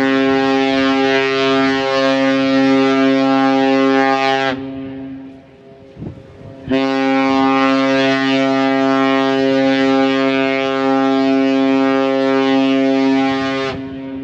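Cruise ship horn sounding two long, steady blasts: the first ends about four seconds in, and after a short pause a second blast lasts about seven seconds.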